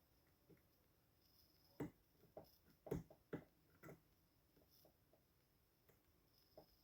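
Faint clicks and taps of a lock pick working the spool and mushroom pins of an 18-pin AEGIS high pin count lock, with a run of louder clicks between about two and four seconds in.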